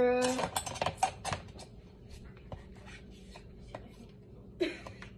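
A voice holds a note at the very start, then there are scattered light clicks and knocks of kitchen handling, thickest in the first second or so and sparse after that.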